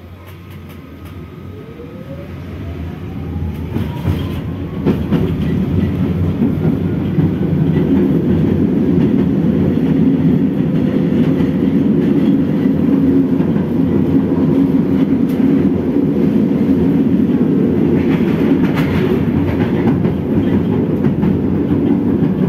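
K1M tram, heard from inside the car, pulling away and gathering speed. A whine from the traction drive rises in pitch over the first five seconds while the running noise grows louder. Then comes a loud, steady rumble of wheels on rails, with a few short knocks.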